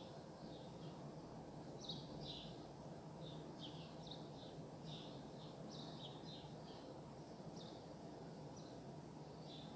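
Small birds chirping, many short high calls a few times a second, over a faint steady low background rumble.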